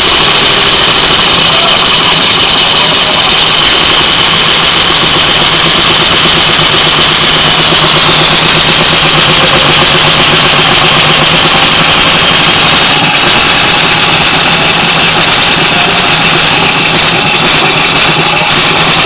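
Small brass twin-cylinder model steam engine running fast: a loud, steady hiss from its exhaust with rapid beats.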